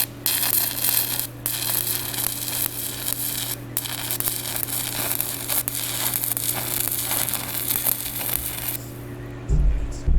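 Electric arc welding on a driveshaft: a continuous crackling arc, broken briefly about a second and a half and nearly four seconds in, that stops near the end, over a steady electrical hum. A few low knocks follow.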